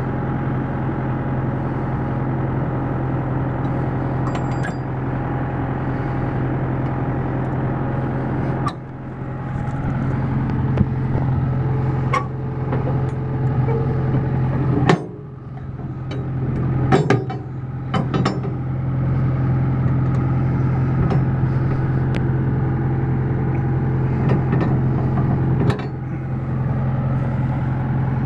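Tractor engine idling steadily, with a few sharp clicks and knocks scattered through.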